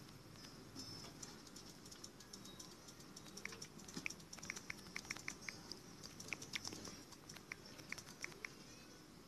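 Faint, irregular clicks of typing on a phone's on-screen keyboard, several a second from about three and a half seconds in.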